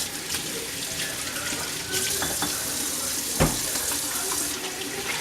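Kitchen faucet running into the sink while hands are washed under it, with a single knock about three and a half seconds in.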